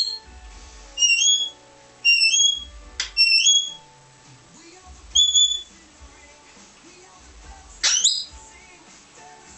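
Australian king parrot calling: high, whistled notes that step upward in pitch, repeated about once a second and then again near the middle. There is a short, sharp upward-sweeping call about three seconds in and another near the end.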